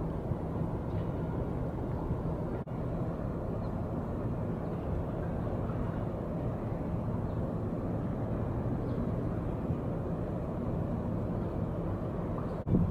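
Harbour ambience: a steady low rumble with a faint low hum running underneath, broken by a brief dip about two and a half seconds in and again near the end.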